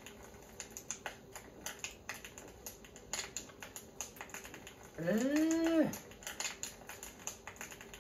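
A man's drawn-out, rising-then-falling "aah" of satisfaction after a sip of beer, lasting about a second, a little past the middle. Light, irregular crackling clicks go on throughout.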